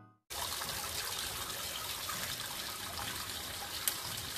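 A thin stream of water pouring and splashing into a hole in a stone floor drain, a steady trickle that starts about a third of a second in. One brief click near the end.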